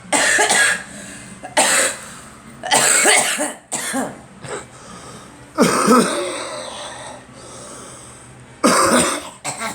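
A person coughing from a head cold, about six coughs spread out in separate bouts. The cougher puts the cold down to a recent flu shot.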